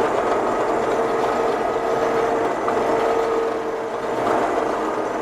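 Combine harvester running steadily while harvesting corn: a continuous machine drone with a steady whine.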